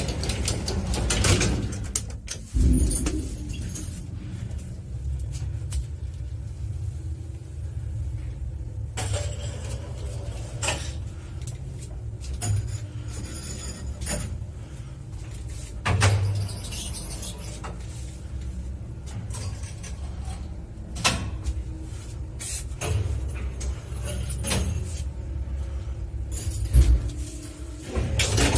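A 1980 Mogilev (MLZ) passenger elevator car travelling in the shaft: a steady low rumble with scattered creaks and knocks from the guide rails. A heavy thump comes about two and a half seconds in.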